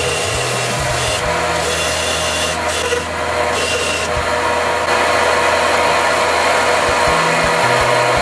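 Belt grinder running, its abrasive belt grinding a small steel washer held against it in pliers: a loud, steady rough rasp.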